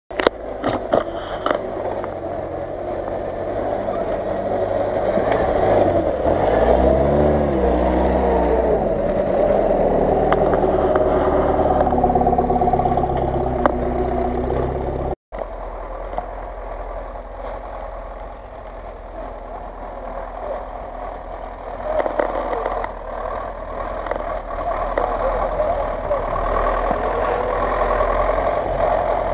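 Off-road 4x4 engine revving through the snow, its pitch rising and falling several times near the start. After a cut, a GAZ-66 army truck's engine runs steadily under load, growing louder in the later part.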